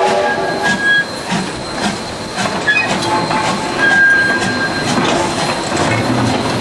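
Victorian Railways Y-class steam locomotive Y112 rolling slowly past with its carriages. It makes a regular beat a little under twice a second, with short high squeals from the wheels about a second in and again around four seconds in.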